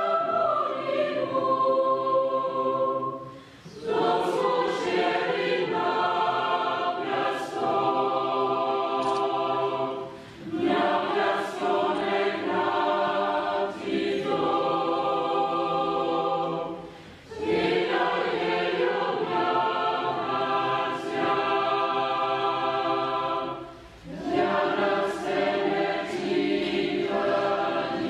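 Choir singing long held chords in phrases of about seven seconds, with a short pause between phrases.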